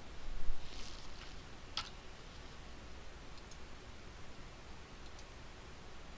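A few faint clicks of a computer mouse over a steady low hiss, with a brief rustle about half a second in and the sharpest click a little under two seconds in.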